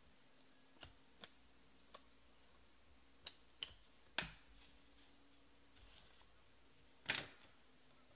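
Sparse, quiet clicks and taps of 2020 Panini Prizm baseball cards being sorted by hand and dropped onto piles on a tabletop, about seven in all, the loudest near the end.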